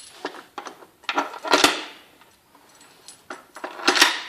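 Assembly rods clinking and knocking as they are pushed into the holes of a plastic reel flange, a handful of sharp knocks with a brief ring, the loudest about a second and a half in and again near the end.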